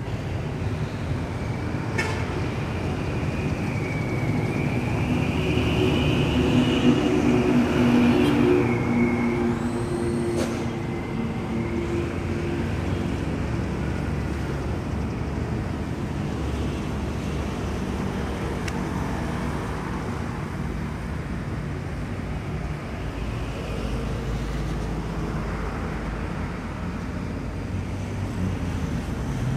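Steady road traffic noise. A motor vehicle passes close by, loudest around six to nine seconds in, with a faint whine rising and then falling in pitch.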